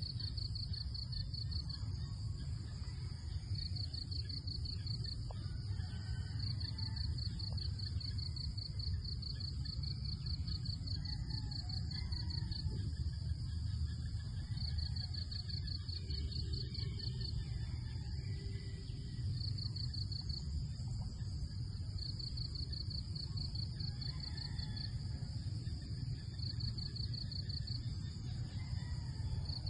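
Insects chirping in rapid pulsed trills, each train lasting a few seconds and repeating throughout, over a steady low rumble.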